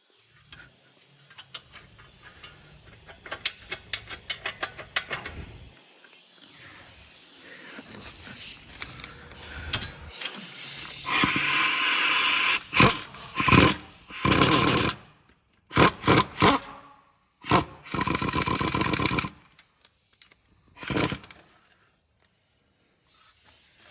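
Impact wrench run in several short pulls over the second half, each about one to one and a half seconds long, driving home the fasteners on a new wheel hub bearing. Lighter rapid clicking comes in the first few seconds.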